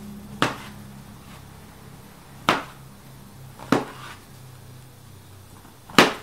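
Kitchen knife chopping mushrooms on a cutting board: four separate, unevenly spaced knocks of the blade striking the board, the last one the loudest.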